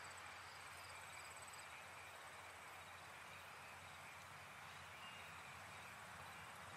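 Near silence: faint, steady night ambience hiss, with a thin, high cricket trill over the first second or so.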